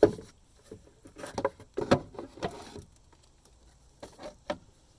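Plastic air cleaner box of a GMC 2500 being handled at its retaining tabs: irregular clicks and knocks of plastic, in clusters, with a pause about three seconds in.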